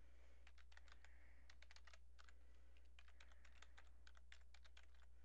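Computer keyboard being typed on: quick, faint key clicks in short irregular runs, over a steady low hum.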